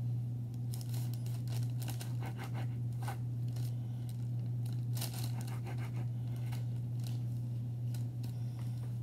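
Small knife cutting soft dough into little squares, the blade scraping and tapping on parchment paper in irregular short crisp strokes, over a steady low hum.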